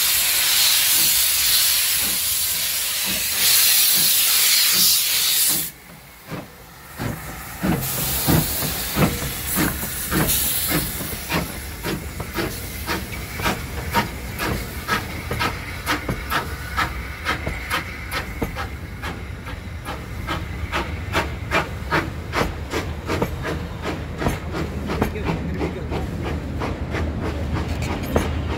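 Steam locomotive No. 828, a Caledonian Railway 0-6-0, starting away: a loud hiss of escaping steam cuts off suddenly about six seconds in, then the exhaust chuffs begin, slow at first and quickening as the engine gathers speed.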